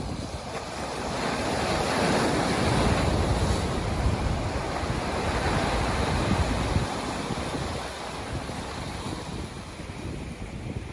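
Ocean waves washing in, a wave's rush swelling over a couple of seconds, holding, then easing off, with wind buffeting the microphone.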